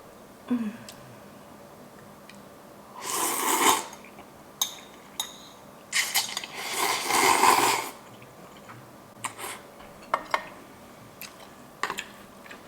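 Instant ramen noodles slurped twice, first briefly, then a longer slurp, with light clicks of utensils against a bowl in between.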